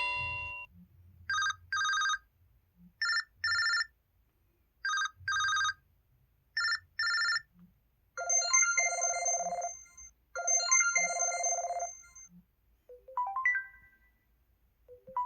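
LG-SU910 mobile phone ringtones playing in turn: short double-pulse electronic rings repeated four times, then two longer rings, then a short rising chime figure that starts to repeat near the end.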